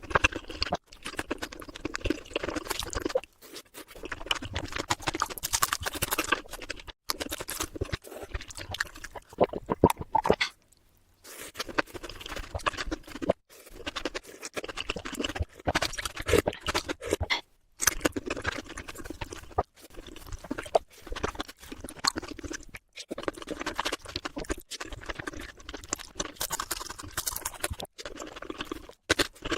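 Close-miked eating: chewing and mouth sounds made up of many small wet clicks and crackles, broken a few times by brief silent gaps.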